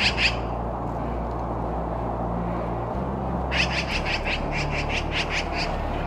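Black-billed magpie mobbing chatter: a rapid run of harsh, rasping calls, about five a second, lasting about two seconds from a little past halfway, with the last couple of calls of an earlier run at the very start. A steady low background noise lies under it.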